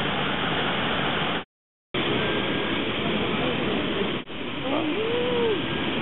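Steady rush of river rapids, cut off for about half a second a second and a half in. Faint wavering calls rise and fall over the water near the end.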